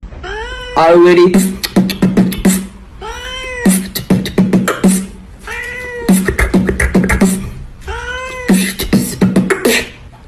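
A cat meowing four times, about every two and a half seconds, each meow followed by a quick run of beatbox-style beats, so that the meows and beats make a repeating rhythm.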